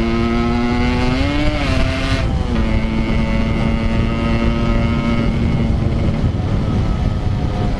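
Yamaha RX-King two-stroke motorcycle engine running under way at cruising speed: its note climbs briefly about a second in, drops sharply near two seconds, then holds steady. Heavy wind rumble on the helmet-mounted action camera's microphone.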